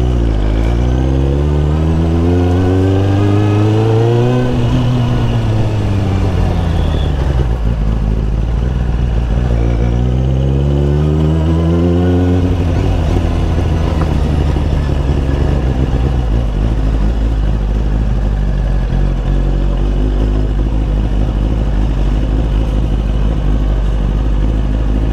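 Motorcycle engine under way: the revs climb for about four seconds and ease off, climb again about ten seconds in, then settle to a steady cruise, over a constant low rumble.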